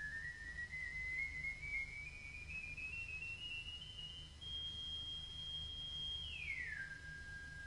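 Wurlitzer 950TA organ playing a faint single pure, whistle-like synthesizer tone. It climbs in small steps, holds a high note, then slides quickly down to a lower held note about three-quarters of the way through. A low rumble runs underneath.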